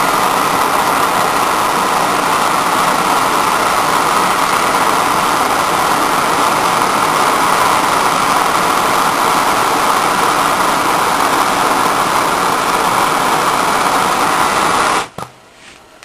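Handheld gas torch flame burning with a steady hiss while it heats a ring terminal to melt solder into the wire end. The hiss cuts off suddenly near the end as the torch is shut off.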